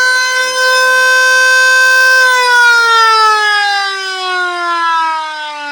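Secomak VS2 24-volt electric siren sounding the attack-red wail: it holds a steady high pitch for about two seconds, then its pitch falls away steadily, the falling part of the rise-and-fall warning tone driven by an auto-wailer.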